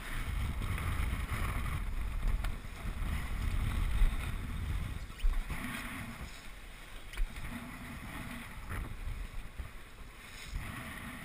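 Wind buffeting the microphone and water rushing along the hull of a small sailboat under way, with a few sharp knocks. The wind rumble is heavy for the first half and eases after about five seconds.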